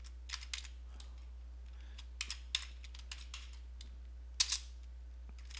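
Computer keyboard typing: scattered, irregular keystrokes, the loudest a quick pair about four and a half seconds in, over a low steady hum.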